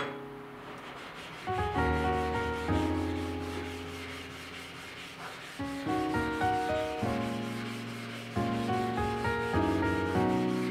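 Gentle piano background music, a few chords struck and left to fade, over a steady scratchy rubbing noise with a quick, even pulse.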